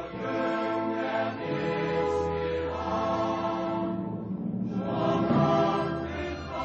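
Background choral music: a choir singing sustained chords that change every second or so.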